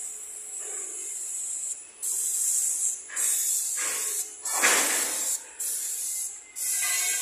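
Airless paint sprayer gun spraying epoxy paint: a loud hiss in a string of bursts about a second long, cut by short breaks as the trigger is released and pulled again. One fuller, louder burst comes near the middle.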